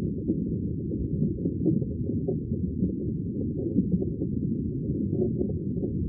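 Muffled underwater ocean ambience: a steady, low, dull wash of water noise with small pops and crackles scattered through it.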